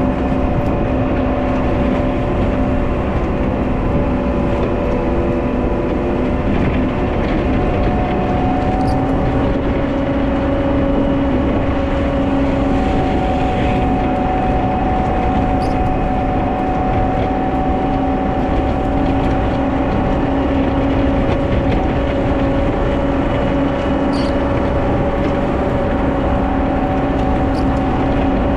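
Wheel loader's diesel engine running steadily while plowing snow, with a few faint ticks.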